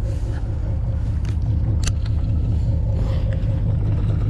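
Sportfishing boat's engine running, a steady low rumble, with a couple of sharp clicks near the middle.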